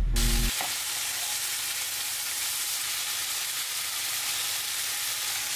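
Spicy stir-fried pork (jeyuk bokkeum) with onion sizzling steadily in a frying pan on a gas stove while it is stirred with chopsticks. A low hum and music notes stop about half a second in, leaving only the sizzle.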